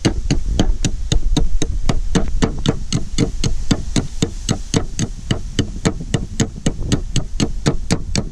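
A Böhler K340 steel plastun knife blade striking a moose antler in a fast, even run of sharp knocks, about five a second, as an edge-durability test.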